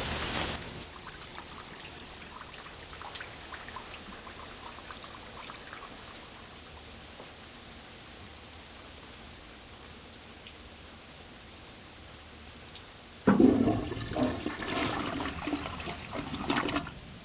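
A faint steady hiss with light ticks. About thirteen seconds in, a toilet flushes with a sudden loud rush of water that lasts about four seconds.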